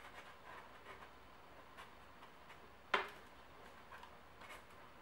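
Foam block being pushed through a hot nichrome wire along a plywood template: faint, irregular ticks and light crackling, with one sharp click about three seconds in.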